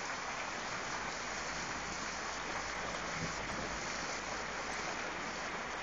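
Heavy rain pouring down in a steady, even hiss, with runoff water streaming.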